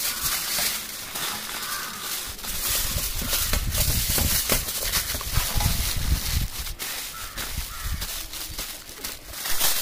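Aluminium foil crinkling and crackling as a food parcel is folded and pressed tight by hand, with a bird calling now and then in the background.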